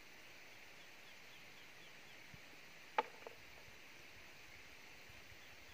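Quiet rural ambience: a steady high hiss with a faint run of short chirps, broken by a sharp knock about three seconds in and a smaller one just after.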